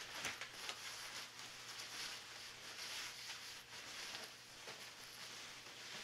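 Thin, lightweight synthetic fabric rustling and crinkling as it is handled and shaken out by hand, with many small irregular crackles.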